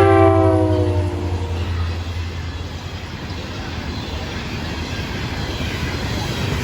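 Freight locomotive's air horn finishing its blast, sliding slightly down in pitch and dying away within the first second or two, then the diesel train rolling past: a steady low engine drone with wheel and rail noise.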